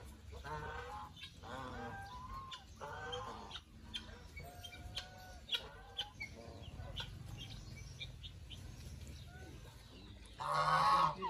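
A flock of domestic geese honking in short, repeated calls, with quieter chirps and clucks in between and a louder burst of calls near the end.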